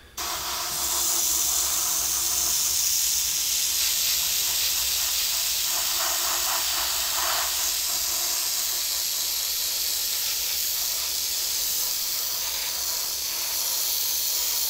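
Spray paint hissing from a spray nozzle in one long unbroken burst that starts abruptly.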